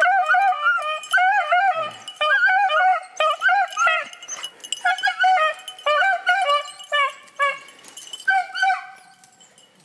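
Beagles baying on the track of a hare: a fast run of short, arching howled yelps, about two or three a second, that stops near the end.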